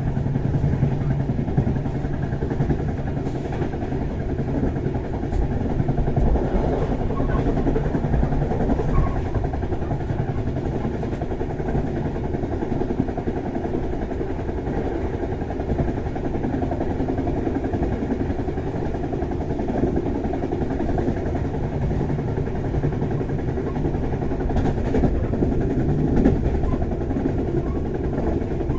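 Passenger train running, heard from inside the coach: a steady low rumble of the wheels and running gear on the track.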